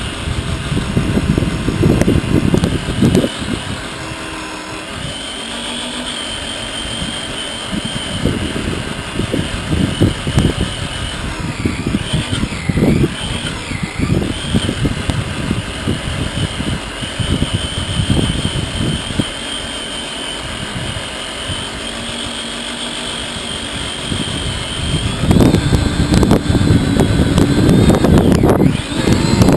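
Onboard sound of a Traxxas Summit RC truck driving over a bumpy dirt track: its electric motor and gear drivetrain whine, rising and falling with the throttle, over a rumble of tyres and suspension with irregular knocks. It gets louder near the end.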